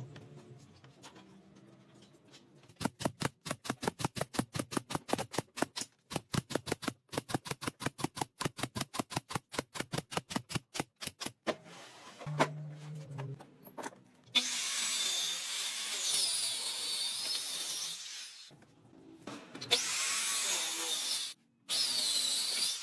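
Woodworking tools on wood. First a hand tool is worked in quick even strokes, about five a second, for some eight seconds. Then a power tool runs for a few seconds with a wavering high whine, stops, and runs twice more briefly near the end.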